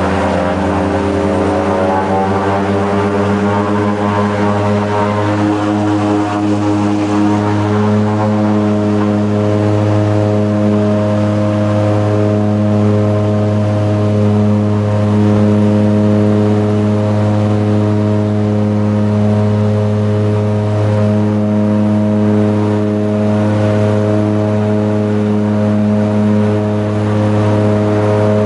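Seaplane's propeller engines at takeoff power, heard from inside the cabin. The drone rises in pitch over the first few seconds, then holds steady and loud.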